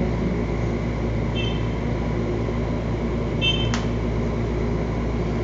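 Steady machine hum, with two short high-pitched beeps about two seconds apart and a sharp click just after the second.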